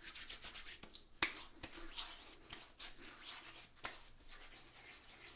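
Hands rubbing pre-shave cream between the palms and into two days' stubble: repeated soft, raspy strokes of skin on bristle, with one light click about a second in.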